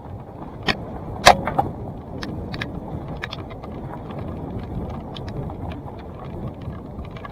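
Salsa Timberjack mountain bike being ridden on a dirt trail: steady rumble of tyres and wind on the camera, with scattered clicks and rattles from the bike. There are two sharp knocks a little over a second in.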